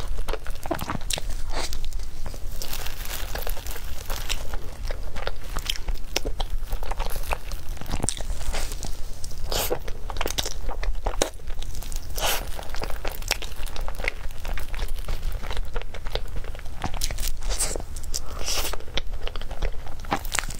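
Close-miked eating sounds: biting into and chewing a soft, powder-dusted cream-filled cake, with irregular small crackles and clicks throughout. The clear plastic food gloves crinkle as her hands squeeze the cake.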